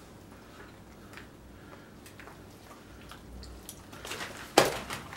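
Faint crinkling and small clicks as a live mirror carp is handled into a plastic bag, with one sharp, loud slap about four and a half seconds in.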